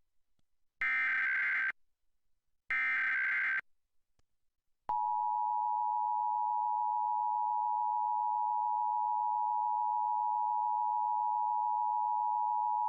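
Emergency Alert System signal: two short bursts of screeching digital SAME header data, then about a second later the steady EAS attention tone, held for about eight seconds. It is the opening of a nationwide EAS test alert.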